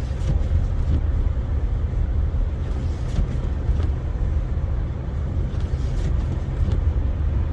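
Steady low rumble of a car driving on a snow-covered highway, engine and tyre noise heard from inside the car.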